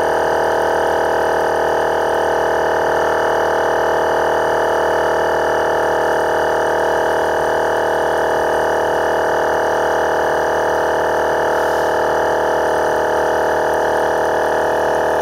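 12 V twin-cylinder portable air compressor running steadily, a constant loud mechanical drone, as it pumps up a car tyre with the pressure climbing toward 40 PSI.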